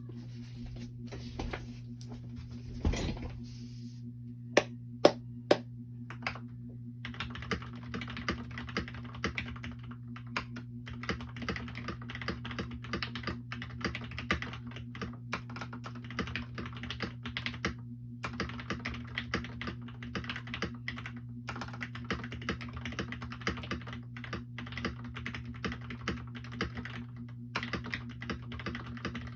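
Mechanical keyboard with lubed Gateron Milky Yellow linear switches and PBT Cherry-profile keycaps being typed on. A few single, loud key strikes come in the first seconds, followed by steady, fast typing over a steady low hum.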